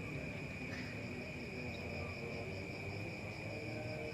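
Steady, high-pitched chirring of crickets, an unbroken insect drone over faint low background noise.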